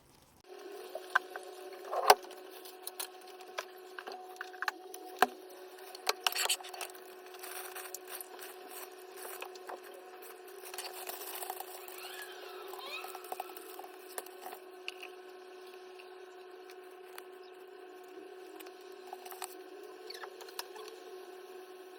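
Kitchen food preparation: scattered clicks, taps and knocks of utensils and food being handled, over a steady electric hum that starts about half a second in.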